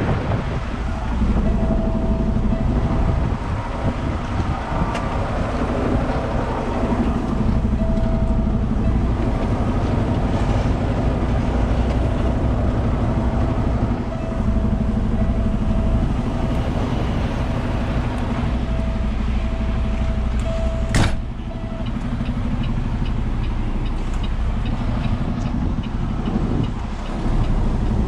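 Diesel engine of a Peterbilt 389 semi truck running steadily, heard from inside the cab, with a thin steady high tone over most of it. A single sharp knock comes about 21 seconds in.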